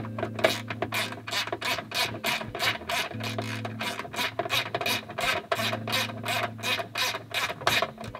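Socket ratchet clicking in an even run, about four clicks a second, as it is swung back and forth to loosen the bolt holding a seatbelt retractor. A low hum underneath comes and goes.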